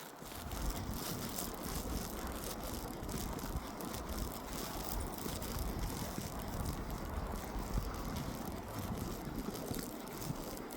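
Footsteps crunching through snow, a steady run of small irregular crunches, with wind rumbling on the microphone.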